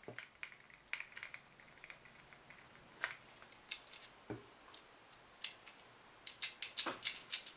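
Light plastic clicks and taps as a telephone handset's plastic shell and circuit board are handled and separated, with a few scattered clicks early and a quick run of clicks near the end.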